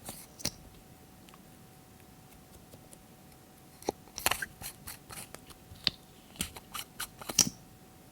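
Glossy slime being squeezed and folded by hand, giving sharp sticky clicks and pops: a few at the start, a quiet stretch, then a quick run of them in the second half.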